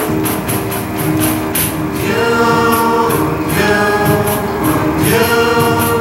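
Live chamber orchestra playing: strings holding sustained notes and a melody over a light percussion beat ticking about four times a second, fuller from about two seconds in.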